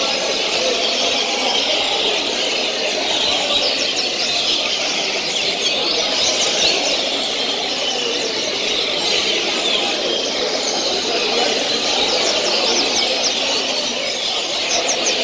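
Many caged double-collared seedeaters (coleiros) singing at once: a dense, overlapping chorus of quick high chirps and trills that never lets up, over a steady lower background din.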